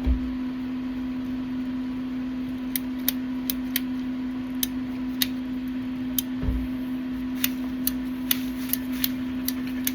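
A steady low mechanical hum with irregular sharp clicks, about two a second, and two dull thumps, one at the start and one about six and a half seconds in.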